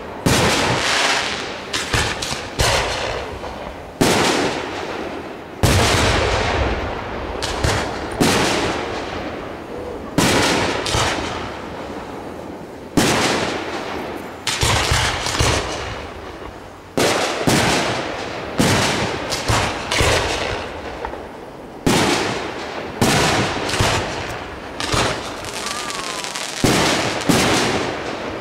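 Aerial firework shells bursting in quick succession, a sharp boom every second or two, each trailing off in a long echo.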